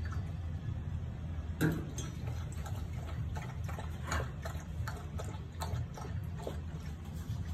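A dog eating from a bowl: a run of irregular clicks and smacks from its mouth and the bowl. About a second and a half in comes one louder clank, as of a stainless steel bowl set down on the cage's wire floor. A steady low hum lies under it all.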